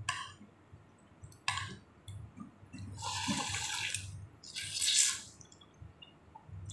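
Slurping from a bowl of chicken thukpa noodle soup: a couple of short sucks, then two longer, louder slurps of broth and noodles in the second half.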